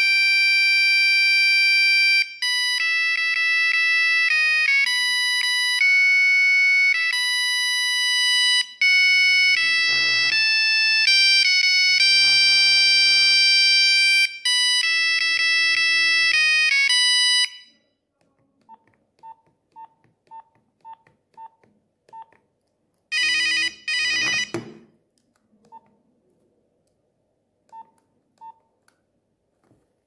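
Nokia 3310 playing a monophonic ringtone through its buzzer, a simple beeping melody of steady notes that stops about 17 seconds in. Then come short keypad beeps about two a second as buttons are pressed, a brief loud buzzy double tone, and a few more key beeps.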